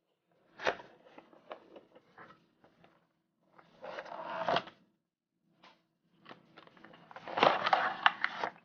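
Cardboard keyboard box being opened and its packaging handled: scattered taps and knocks, with a sliding, rustling scrape about four seconds in and again near the end.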